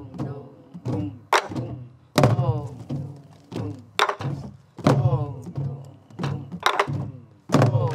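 Several sori-buk (pansori barrel drums) played together with sticks in the jajinmori rhythm. Deep booms on the drumheads alternate with sharp cracks on the wooden drum bodies in an uneven, repeating pattern.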